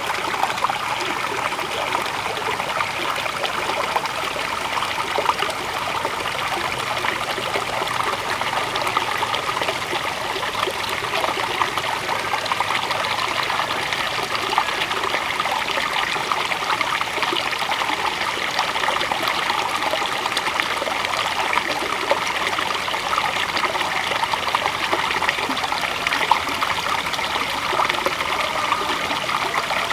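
River water flowing and splashing over rocks in a steady, continuous babble.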